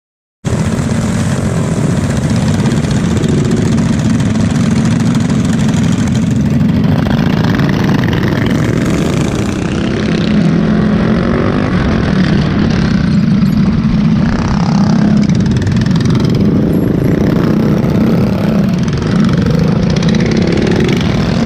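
Honda mini bike's small engine running hard, heard from on board, its pitch rising and falling with the throttle. It cuts in abruptly about half a second in.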